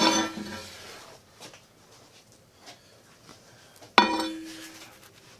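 Steel parts being set down on a steel welding table: a sharp metallic clank at the start and another about four seconds in, each ringing briefly as it fades, with a few light taps between.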